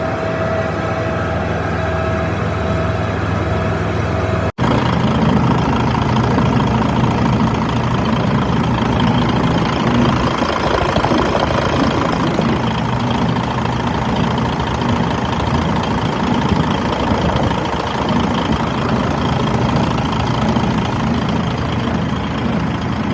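Engine of a 2007 DAF CF suction excavator truck running steadily, with a steady whine over the engine note; the sound cuts out for an instant and resumes slightly louder about four and a half seconds in.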